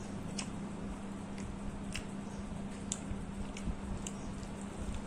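Wet squishing of rice and fish curry being mixed by hand, with scattered sharp mouth clicks of chewing. A steady low hum runs underneath.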